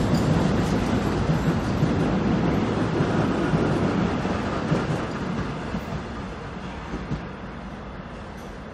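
Korail electric commuter train running past on the track: a steady rumble of wheels on rail with a few sharp knocks, growing fainter over the last few seconds.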